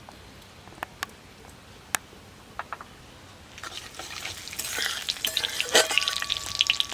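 A few light clicks, then about halfway through whole cumin seeds start to sizzle and crackle in hot mustard oil in a kadai, growing louder, with a single knock shortly before the end.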